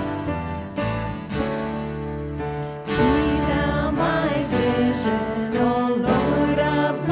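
A live worship band plays a song, with acoustic guitar strumming over bass and keyboard. About three seconds in, a woman's voice comes in singing the melody and the music gets louder.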